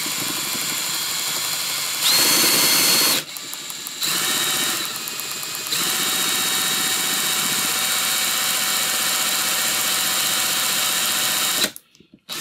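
Cordless drill running, spinning the camshaft of a 3D-printed engine's contact-breaker ignition to make it spark. Its whine steps louder about 2 s in, drops back about a second later, rises again around 6 s, and cuts off suddenly near the end.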